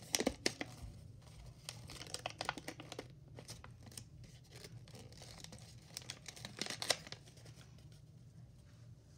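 A sheet of white paper crinkling and crackling as it is opened out and creased into a paper boat, in irregular bursts that come thickest just after the start, around two to three seconds in, and again near seven seconds, over a steady low hum.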